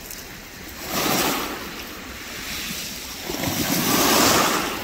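Small waves washing in over a shingle beach at the water's edge, surging twice: once about a second in and again, louder, near the end.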